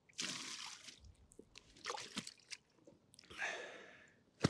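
Wet squelching and rustling as a freshly landed mirror carp is handled, in three short bursts, followed by a sharp knock near the end.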